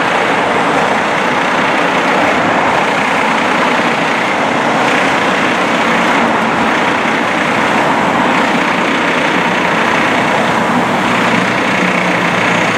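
Fire engine's diesel engine idling steadily close by, with road traffic passing.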